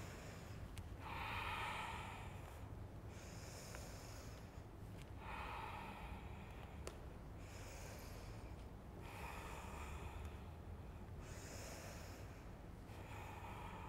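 A woman's faint, slow breathing during a yoga stretch: about seven soft breaths roughly two seconds apart, inhales and exhales alternating, paced with her rocking forward and back in the lunge.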